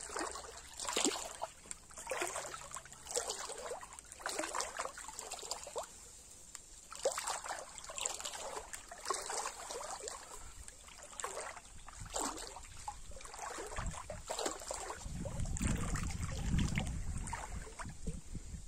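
Shallow river water splashing and sloshing in a series of short splashes, roughly one a second, with a low rumble near the end.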